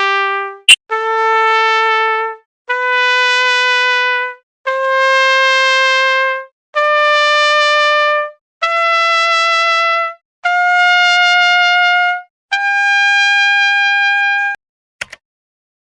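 A keyboard playing a trumpet-like voice: one held note after another, each about a second and a half long with short gaps, climbing step by step up a scale. A sharp click comes about a second in, and two short clicks near the end.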